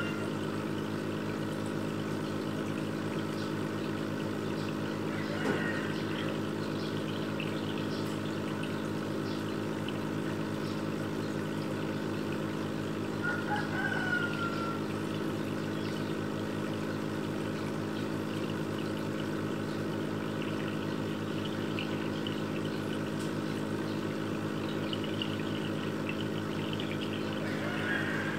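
Steady hum of an aquarium filter pump with water trickling, and a few short high chirps about five seconds in, around fourteen seconds and near the end.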